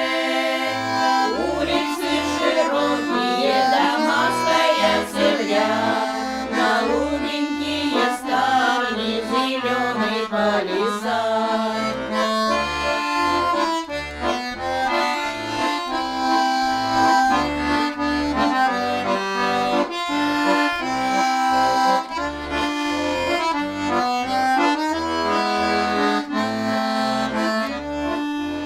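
Accordion music: a folk-style tune of sustained, chord-like notes over an evenly repeating bass line, accompanying a Nagaibak folk song.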